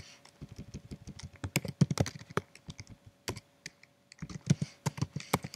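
Typing on a computer keyboard: irregular flurries of keystrokes with a short pause about three and a half seconds in, as editor and shell commands are entered.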